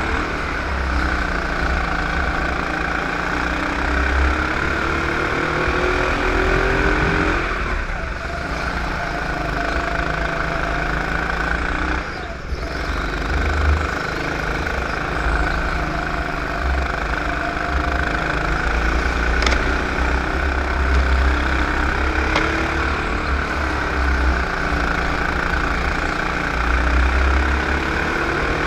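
Superkart engine heard from on board at racing speed, revving up along the straights and dropping back off the throttle into the corners, over and over.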